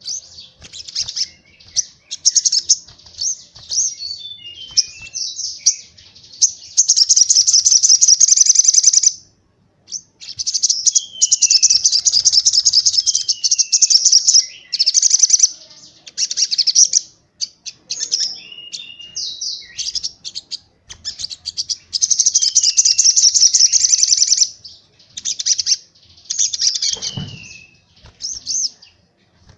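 Small songbird, a white-eye (pleci), singing a fast run of high, rapid trilled bursts. Three long rattling trills of two to three seconds each stand out, with short downward-sliding whistled notes in between.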